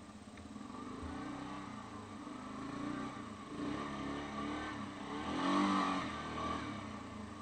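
Yamaha Grizzly 550 ATV's single-cylinder four-stroke engine revving up and down under load as the quad climbs a hill, loudest a little past halfway through.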